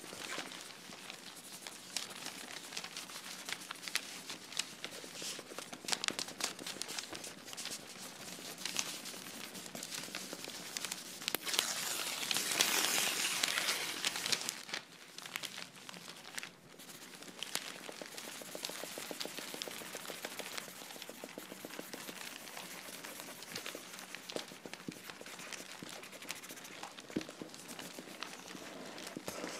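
Paper crinkling and rustling with many scattered small clicks and crackles, rising to a louder rush of rustling noise about halfway through.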